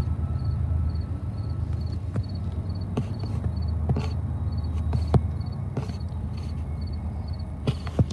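A low rumble that eases off about six seconds in, with an insect chirping in quick triple pulses about twice a second and a few scattered clicks.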